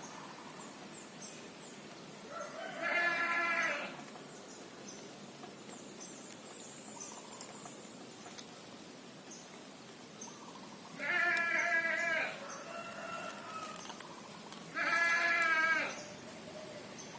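An animal calling: three long, even-pitched bleat-like cries, each about a second long, spaced several seconds apart.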